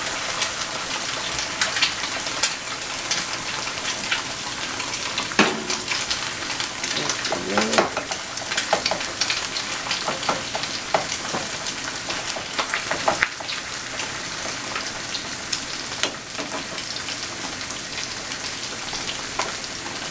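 Eggs frying in a skillet: a steady crackling sizzle, with a few sharp taps and scrapes of a metal spatula in the pan.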